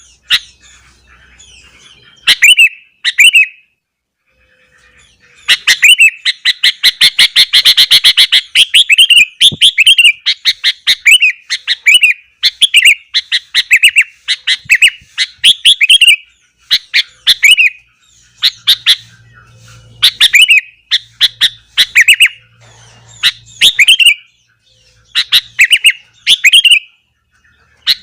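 Sooty-headed bulbul (kutilang) singing: short chirping phrases repeated in quick succession. There is a brief pause about four seconds in, then a fast run of notes.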